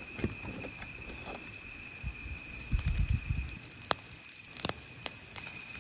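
Hot charcoal crackling with a few sharp pops under a wire grill basket of mackerel, with a dull low thump from the basket being handled about three seconds in. A steady high insect trill runs underneath.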